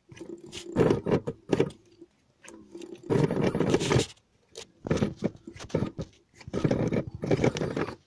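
Electric scooter's direct-drive hub motor trying to turn in several noisy bursts of about a second each as the throttle is pressed. It is running on two phases with one phase dropped, so it cannot run properly; the controller has bad MOSFETs and throws error 4.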